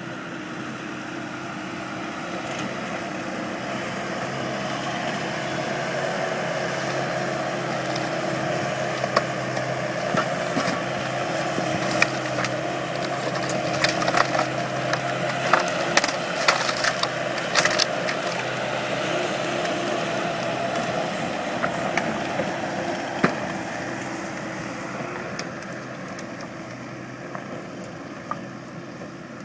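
Bobcat skid steer's diesel engine running steadily, growing louder toward the middle and fading near the end. Through the middle, sharp knocks and clatters of scrap lumber being gripped and shifted by the grapple rake.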